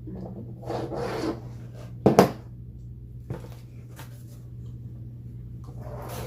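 Takeout food containers and utensils being handled at the table: a rubbing, scraping noise, then a sharp knock about two seconds in and a smaller click after it, over a steady low hum.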